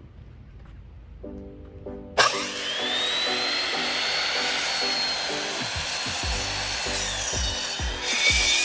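An electric power saw cuts through wood, starting suddenly about two seconds in with a whine that rises to a steady pitch and drops about seven seconds in. Background music with a steady beat plays underneath.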